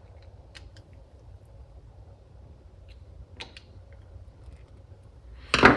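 Faint light clicks of small metal carburetor parts being handled, over a low steady hum. A single loud knock near the end.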